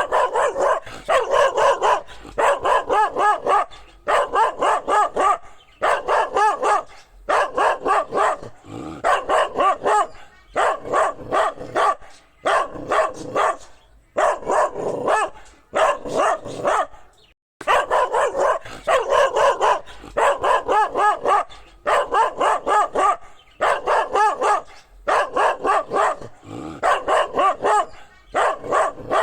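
A dog barking over and over in quick runs of several barks, each run followed by a short pause, about every two seconds. The sound cuts out completely for a moment about two-thirds of the way through.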